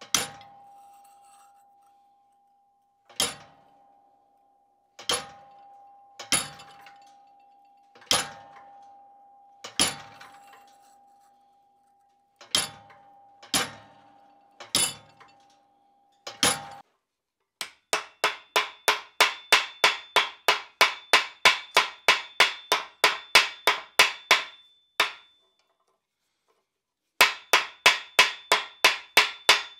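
Hammer striking a hand-held chisel to cut detail lines into a steel leaf-shaped plate on an anvil: single blows a second or two apart, each leaving a steady metallic ring. After about 17 s, quick runs of hammer blows, about four a second with a higher ring, on a red-hot forged piece set in a swage block.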